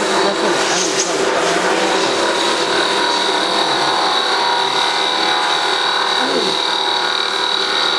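Mini wood bead lathe running, its spindle turning a wooden blank while a drill-bit cutter works the wood: a steady machine noise with a constant high whine.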